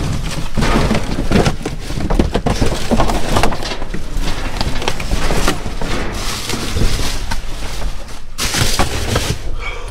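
Cardboard boxes and plastic bags being rummaged through by gloved hands: dense rustling and crackling with scattered knocks, and a burst of plastic rustling near the end.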